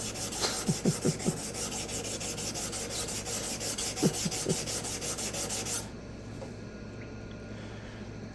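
Nagura conditioning stone rubbed rapidly back and forth over a small wet resin-bonded diamond sharpening stone, a gritty scrubbing that cleans the stone's glazed, burnished surface. The rubbing stops about six seconds in.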